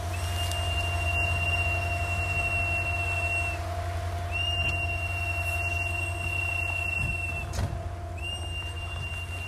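A car horn held down in a steady blare, with a higher shrill tone sounding in long blasts of about three seconds each, twice and again near the end, over the low rumble of idling traffic.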